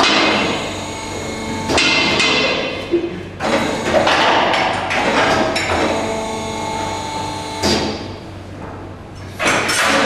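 Steel meat hooks and the stainless-steel loading crane arm and rails clanking as a beef quarter is hooked on: half a dozen sharp metallic knocks at uneven intervals, each leaving a ringing tone.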